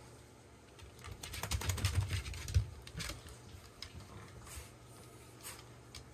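A beagle's claws pattering on the floor while a towel rubs over its coat. A flurry of quick taps and rustles with a thump comes between one and three seconds in, then fainter scattered taps.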